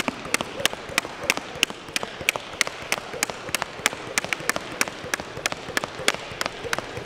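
Jump rope slapping a hardwood gym floor in a fast, steady rhythm of about three sharp strikes a second.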